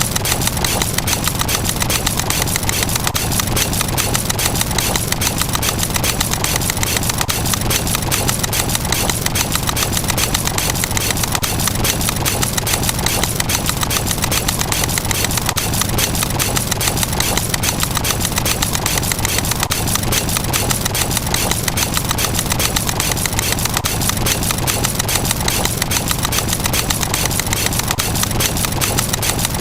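Short, sharp click-like sound effect repeated very rapidly, many times a second without a break, blurring into a dense, steady rattle: one click for each step of a fast-running counter.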